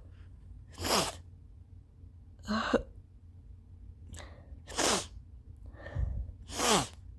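A person sneezing four times in a row, about two seconds apart, each sneeze a short, loud burst falling in pitch, with quick breaths in between. These are allergy sneezes.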